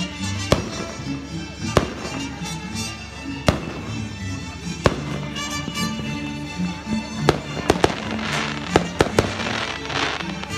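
Aerial fireworks exploding in single sharp bangs every second or two, then a quick run of bangs about seven to nine seconds in, with crackling bursts following. Music plays steadily underneath.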